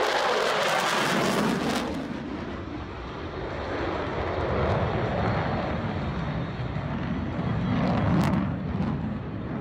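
Aircraft flying over at an airshow: a loud rush of engine noise over the first two seconds that fades, then a steady low engine rumble that swells again near the end.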